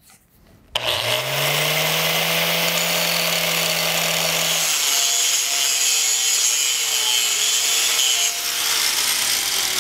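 An angle grinder with a quarter-inch hard grinding disc switches on about a second in and spins up to a steady whine. From about halfway through, the disc bites into the weld on a steel pipe, the motor pitch dropping and wavering under load with a harsh grinding hiss, as porosity and slag inclusion are ground out to reprofile the bevel.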